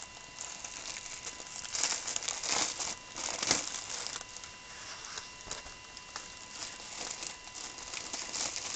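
Clear plastic bag of foil-sealed diamond painting drill packets crinkling as it is handled, with a run of louder crinkles about two to three and a half seconds in.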